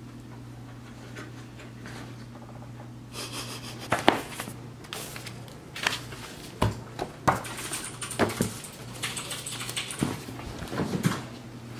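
A low steady hum, then from about three seconds in a run of uneven knocks, rustles and paper swishes as a notebook's pages are handled and a paperback book is picked up and moved on a table.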